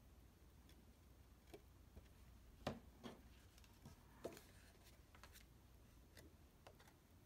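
Faint handling of paper and card stock: a few light taps and rustles as a glued white card panel is laid into a folded cardstock card base, the two clearest taps nearly three seconds and about four seconds in.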